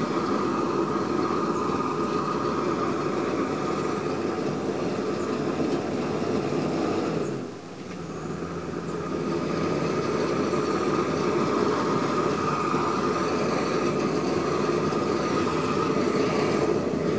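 Propane weed-burner torch burning with a steady rushing flame sound. The sound drops sharply about halfway through, then builds back up over a couple of seconds.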